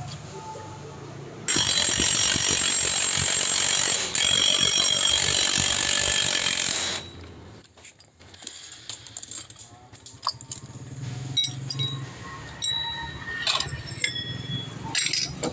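A compressed-air tool running in a loud rushing hiss for about five seconds during work on a scooter's CVT, cutting off suddenly. Light metallic clicks and clinks of parts and hand tools follow.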